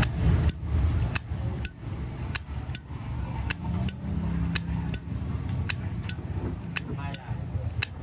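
Satin-chrome Zippo lighter's lid flipped open and snapped shut over and over, about seven times at an even pace. Each cycle gives a pair of crisp metal clicks, one of them a bright ringing clink, the sound that the seller calls excellent.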